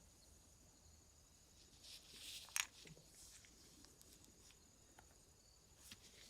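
Quiet handling of small hard objects on a workbench: a brief rustling scrape about two seconds in, then a sharp click, and a smaller click near the end, over a faint hiss.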